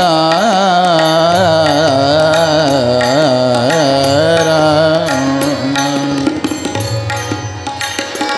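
Male voice singing a long, wavering, ornamented held note in a Warkari devotional bhajan, about five seconds on the higher note, then settling onto a lower note and growing quieter near the end.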